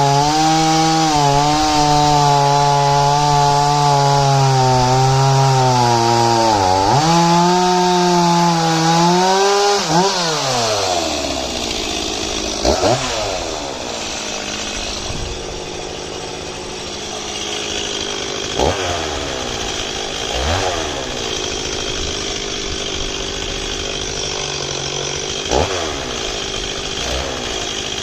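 Stihl 026 two-stroke chainsaw running at high revs, its pitch sagging briefly a couple of times. About ten seconds in the throttle is released and the revs fall away to idle. The saw is then blipped up briefly several times, each rev falling back to idle.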